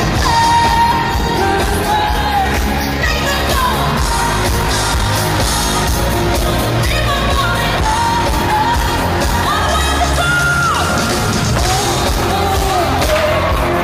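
Live pop song heard from the crowd in an arena: a female lead singer holding long notes over a band with a steady heavy beat, with shouts from the audience.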